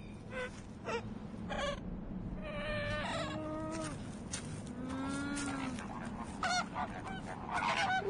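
Goose-like honking calls, many short ones with a rising-then-falling pitch, the loudest near the end, over a steady low rumble.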